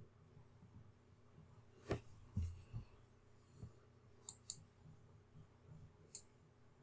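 Faint computer mouse clicks: one about two seconds in, a quick pair just past four seconds and another near six seconds.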